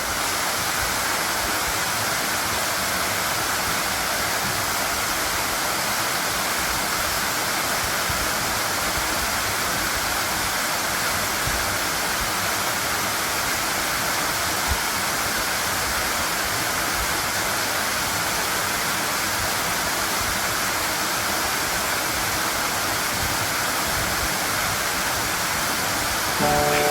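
Tsukimachi Falls, a waterfall about 17 m high, crashing onto its plunge pool as a steady, unbroken rush of falling water.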